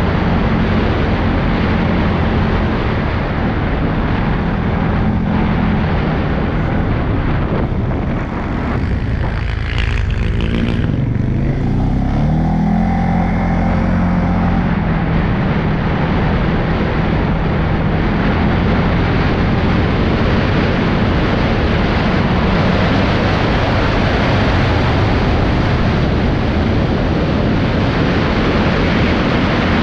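CFMOTO CFORCE 625 ATV's single-cylinder four-stroke engine running under way at speed, with wind rushing over the microphone. About ten seconds in the engine eases off briefly, then revs back up with a rising pitch and holds steady again.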